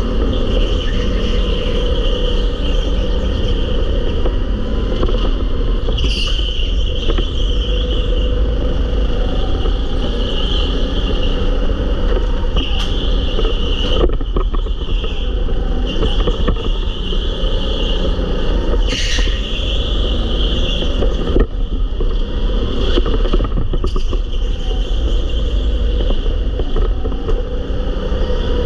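Go-kart running at speed on track, heard onboard: continuous engine noise and heavy chassis rumble, with a few brief higher flares as it corners.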